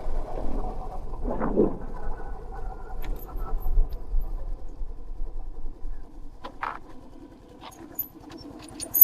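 A small engine running steadily, with a low, even pulsing hum; a few short clicks and taps come near the end.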